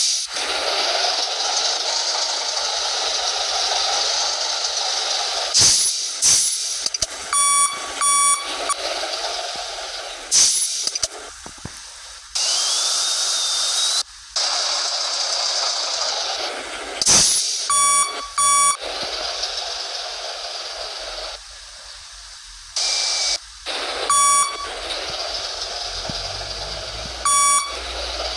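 Basuri telolet bus horn sounding short toots on one note, several in quick pairs, over a steady rushing noise that cuts in and out abruptly.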